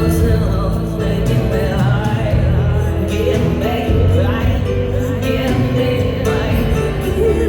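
Live concert music: a woman singing over sustained low instrumental notes.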